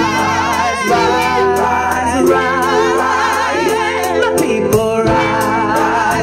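Live vocal group singing together in harmony through a PA, the voices full of vibrato. The reggae band's backing is pulled back, its bass low under the voices.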